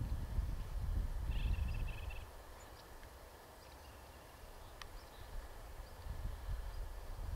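A short trilled call from a small songbird about a second and a half in, over a low rumble that fades out after about two seconds, leaving faint outdoor quiet with a few faint high chips.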